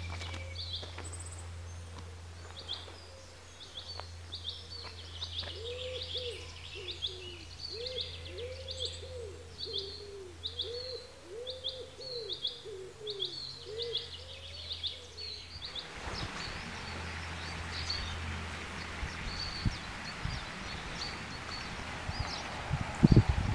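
Wild birds calling: one repeats short high notes over and over, while another gives a run of low, rounded cooing calls from about five to fifteen seconds in. After about sixteen seconds a steady hiss like wind on the microphone takes over, with a few low bumps near the end.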